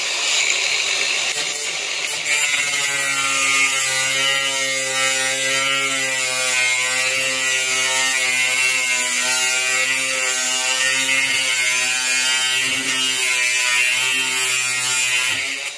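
Cordless angle grinder with a thin metal cutting disc cutting through mild steel sheet: a steady high whine over a harsh grinding hiss. The pitch wavers a little as the grinder is rocked back and forth along the cut, and the sound stops suddenly near the end.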